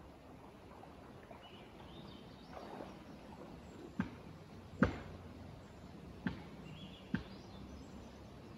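Four sharp knocks from the trees, irregularly spaced about a second apart, the second the loudest, over faint bird calls and quiet forest background. It is a creepy thumping in the woods whose source he cannot identify, jokingly put down to a 150-pound woodpecker.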